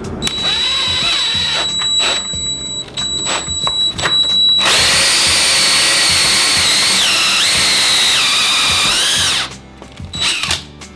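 Cordless drill spinning a 1 3/8-inch hole saw through plywood. The motor whine starts and stops a few times, then the saw cuts in steadily for about five seconds, its pitch sagging twice under load, before it stops sharply near the end.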